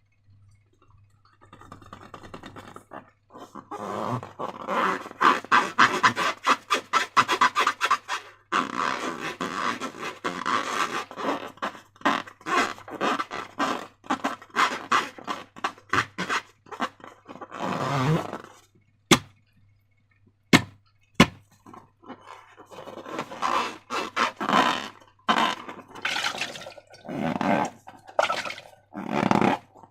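Slime being squished and worked by hand, giving rapid sticky, crackling clicks in long runs. A few single sharp clicks come partway through before the crackling starts again.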